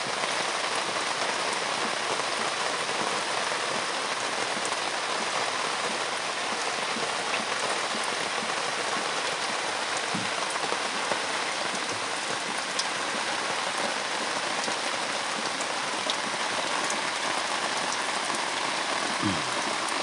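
Steady rain falling, an even hiss with a few separate drops ticking now and then.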